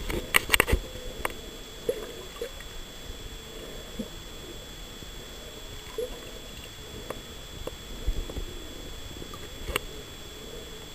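Underwater sound with humpback whale calls: short low tones that swoop up and down, recurring every second or two. A cluster of sharp clicks and knocks comes in the first second, with a few single clicks later.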